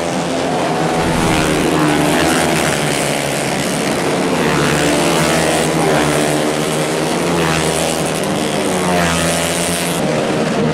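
Several four-stroke 150cc underbone race motorcycles at full throttle. The engine notes overlap, each climbing in pitch and dropping back several times as the riders shift up.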